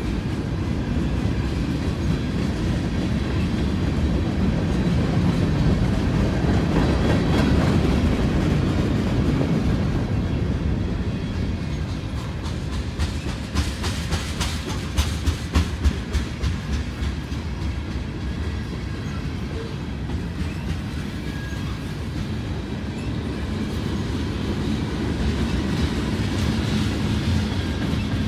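Freight train cars rolling past at close range: a steady rumble of steel wheels on the rails. About halfway through comes a short run of sharp wheel clacks.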